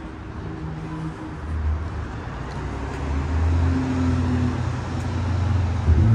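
Cars driving along a city street close by, their engines humming low and growing louder toward the end as a car comes nearer.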